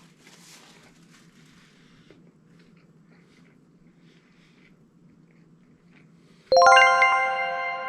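Faint chewing, then about six and a half seconds in a musical sting cuts in: a quickly rolled chord of bright chiming or plucked notes that rings on and slowly fades.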